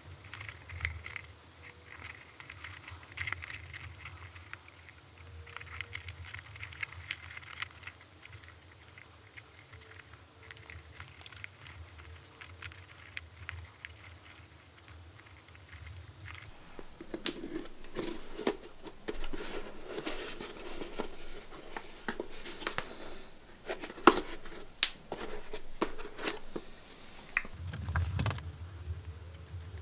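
Hands working a leather helmet liner: a soft crackling rustle of leather with scattered clicks and taps. It gets busier and louder about halfway through, with one sharp click.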